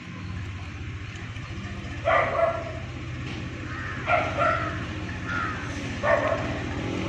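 A dog barking several times, about every two seconds, over a steady low hum.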